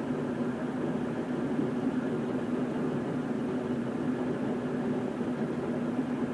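1941 Chris-Craft Model 112 runabout's inboard engine running steadily while underway: an even low hum over a constant rushing noise.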